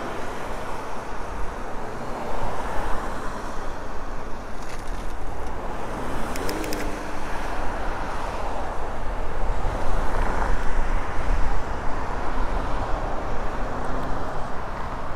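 Riding noise from an electric mountain bike under way: wind rushing over the helmet-mounted action camera's microphone and tyre noise, a steady rush that rises and falls in gusts.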